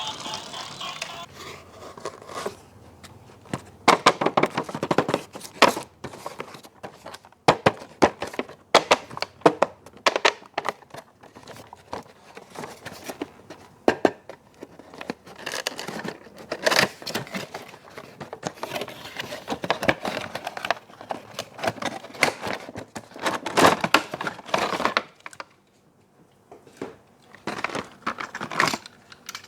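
Toy packaging being opened by hand: plastic and cardboard crinkling and tearing, with irregular clicks and rustles and a short lull near the end.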